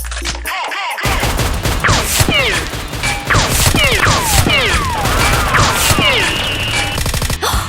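Rapid volley of gunfire-style shots in a Nerf battle, mixed with repeated short whistling tones that fall in pitch. It starts about a second in and stops just before the end.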